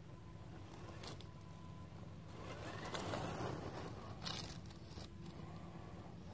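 Traxxas TRX-4 RC crawler moving over dry grass and fallen leaves: a rustling crunch builds up around the middle, with a sharp click about three seconds in and a louder one a little over a second later.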